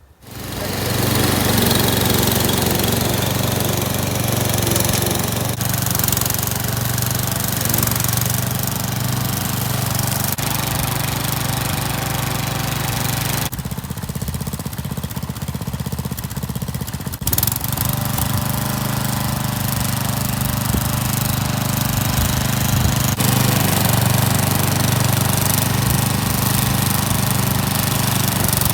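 Petrol lawn mower engine running steadily at working speed, cutting long grass, with a short dip in the higher part of the sound about halfway through.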